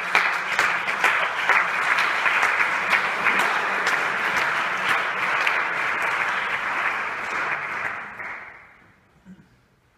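Audience applauding: dense, steady clapping that dies away about eight seconds in.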